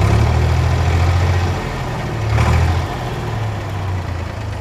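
Ford 4000 tractor's three-cylinder engine running, steady and smooth ("running very sweet"), its note swelling louder for the first second and a half and again briefly about two and a half seconds in.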